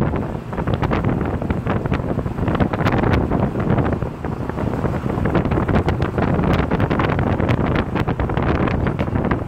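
Heavy wind buffeting a phone's microphone in the open bed of a moving pickup truck, mixed with the truck's road noise.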